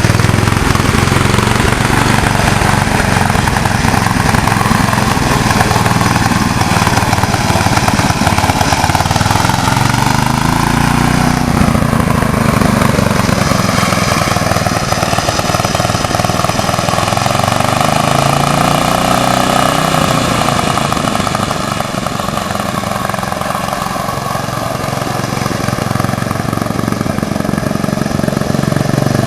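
Riding lawnmower engine running close by and loud. Its pitch swells and falls twice, about a third and about two-thirds of the way through.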